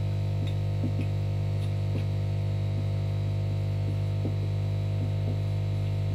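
Steady mains-type electrical hum with a buzz of many overtones, unchanging throughout. Faint short scratches of a marker pen writing letters come through it at irregular intervals.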